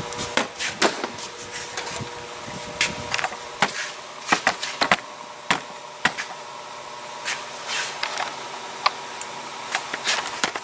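Irregular sharp clicks and light knocks from handling in an engine bay, over a steady shop hum that stops about four seconds in.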